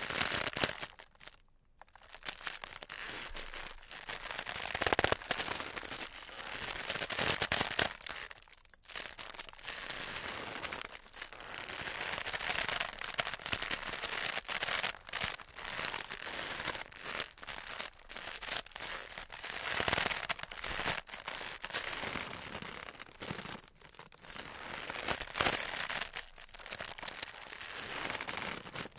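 Wicker basketwork creaking and crackling under shifting weight: a dense run of small cracks, creaks and rustles, with a few louder cracks and two brief pauses.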